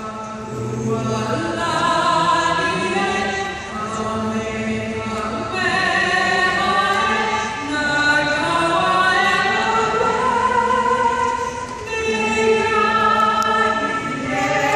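A woman singing an anthem solo into a handheld microphone, amplified through the arena's sound system, holding long sustained notes.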